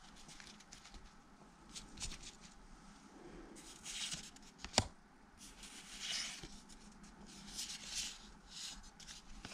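Cardboard football trading cards being flipped through by hand, each card sliding across the stack with a soft swish, about four times, with one sharp click a little under five seconds in.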